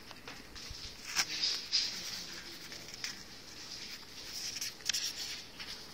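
Paper inserts and packaging from an iPod Touch box being handled, rustling, with a sharp crinkle about a second in and another near the end.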